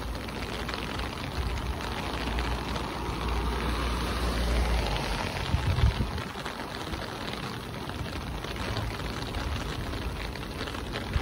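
Outdoor street noise heard while walking along a pavement: a steady hiss with a low rumble that eases about six seconds in, and a couple of sharp knocks just before it does.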